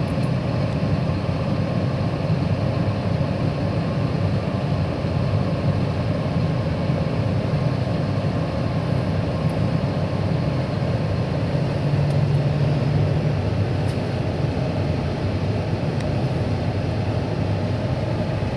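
Tractor diesel engine running steadily, heard from inside a tractor cab.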